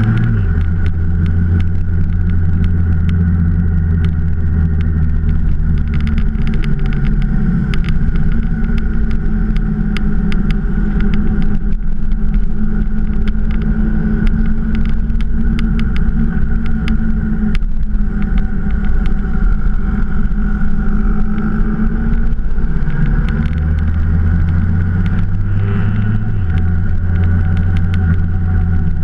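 Motorcycle engine running steadily at road speed under a rush of wind and road noise. The engine note eases off about a second in and picks up again from about 23 seconds, stepping once more near 26 seconds, as with throttle and gear changes.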